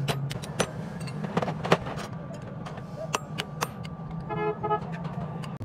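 Hammer blows on steel at the forge, about two a second at first and then sparser, over a steady low hum. Near the end a vehicle horn gives two short toots.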